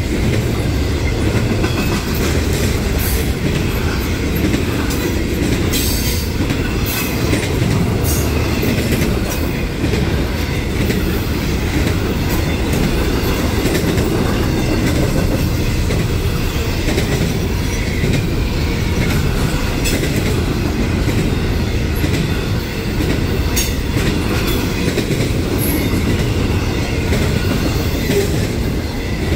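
Freight train cars rolling steadily past, a loud low rumble with the wheels clacking over rail joints now and then.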